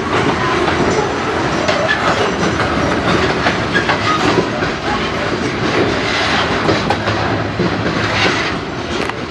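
Freight train's covered hopper cars rolling past at close range: a steady steel-wheel rumble with repeated clacks of the wheels over the rail joints.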